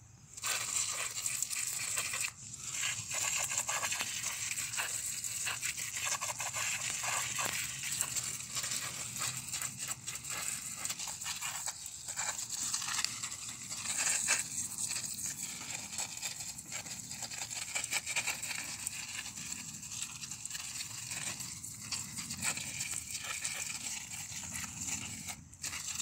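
Crackling rustle of corn and bean leaves and stalks brushed and handled close to the microphone, going on with many small crackles and a short break near the start.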